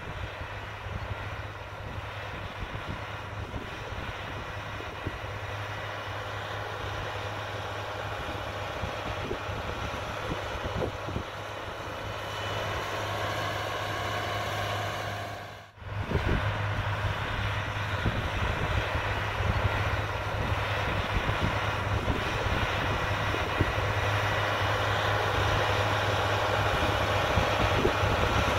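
Tractor's diesel engine running steadily as it pulls a corn planter. It briefly drops away about sixteen seconds in and comes back louder.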